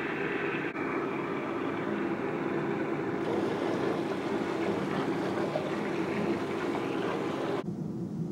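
Water running and churning into a sink full of soapy dishwater, a steady rushing that gets brighter and fuller about three seconds in. It cuts off sharply near the end, giving way to a duller, steady car road noise.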